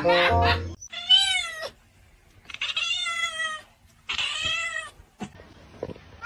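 A domestic cat meowing three times with short pauses between, each meow a drawn-out call that rises and then falls in pitch.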